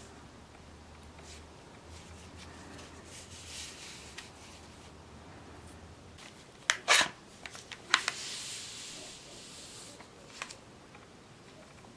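Hands handling small objects with light rubbing and rustling, then a few sharp clicks or knocks about seven seconds in and another about a second later, the loudest sounds.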